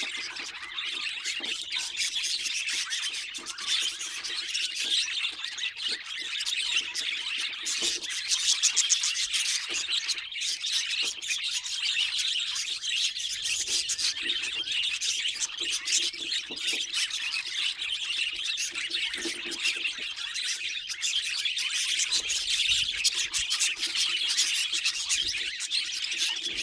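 Budgerigar warbling and chattering continuously, a rapid busy stream of high chirps and scratchy notes without a break.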